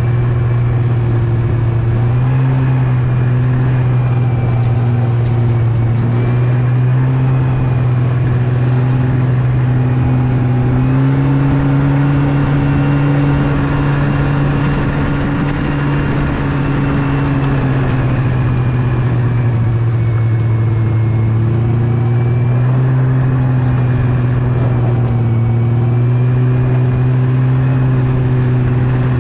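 Yamaha Venture snowmobile engine running steadily while riding, its pitch stepping up about a third of the way in, easing off past the middle, then rising again near the end.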